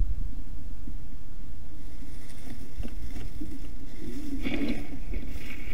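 Wind buffeting the camera microphone as a steady low rumble, with a brief, louder rustling sound about four and a half seconds in.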